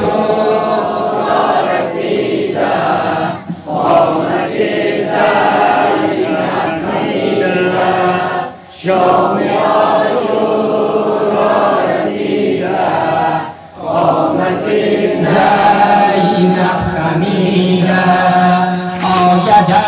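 Shia Muharram noha, a mourning chant in Persian, sung by a male reciter into a microphone with mourners chanting along in unison. The slow melodic lines are broken by short pauses about every five seconds.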